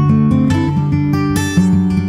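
Background music played on guitar, with a new note or chord struck every fraction of a second.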